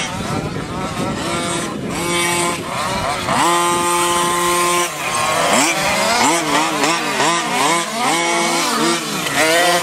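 Small engines of radio-controlled off-road cars revving up and down in a high buzzing whine. The first half has held notes at steady revs. From about halfway, several engines overlap with quickly rising and falling pitch.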